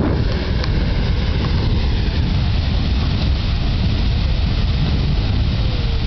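Beehive Geyser erupting: its water-and-steam column jetting continuously with a steady, loud rushing noise.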